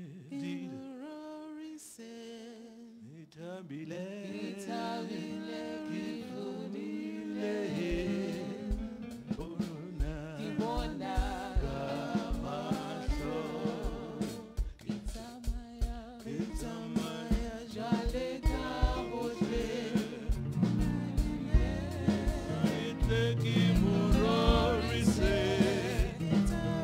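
Gospel song in a church service: voices singing, with a drum beat coming in about eight seconds in and the music growing fuller and louder toward the end.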